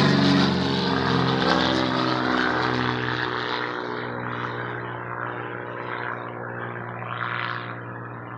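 Sonex light airplane's piston engine and propeller passing overhead on a flyby: the engine note drops slightly in pitch as it goes by, then fades steadily as the plane flies away.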